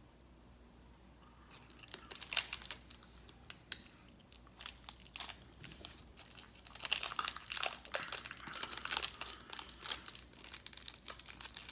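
Plastic snack wrapper crinkling as it is handled: a rapid, irregular run of sharp crackles that starts about two seconds in and is densest after the middle.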